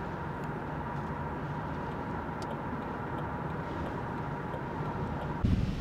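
Steady road and engine noise of a car driving on a highway, with a faint steady whine running through it. Near the end it cuts abruptly to a louder, gusty rumble.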